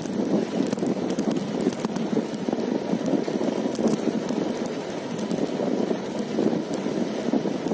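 Wind buffeting a phone microphone while riding a bicycle: a steady, rough rushing with faint scattered ticks.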